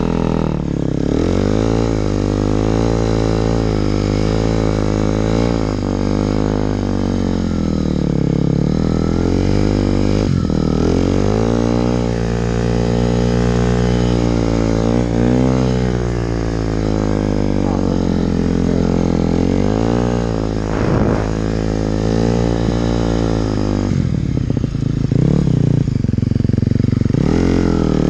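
Engine of a handlebar-steered snow vehicle under load in deep snow, revving up and down continuously so the pitch keeps rising and falling, easing off briefly about a third of the way in.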